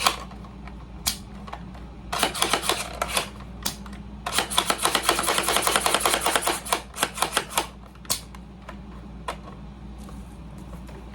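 Toy blaster packaging being handled: rapid clicking and rattling of plastic and cardboard in two longer runs, with a few single clicks between and after.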